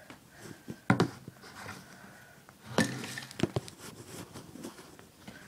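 Handling knocks and clicks from a camera being set up: one sharp knock about a second in, then a few more around three seconds in.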